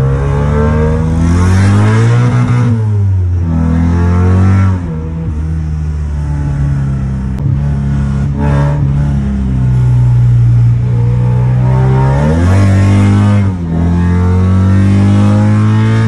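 Car engine and exhaust fitted with an exhaust cut-out, heard from inside the cabin while driving. The engine accelerates, and its pitch climbs and then drops at each gear change: a couple of seconds in, again around five seconds, and once more near the end, with steady running in between.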